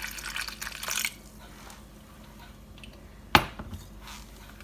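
Water poured into a bowl of yogurt for about a second, then a single sharp knock about three seconds later.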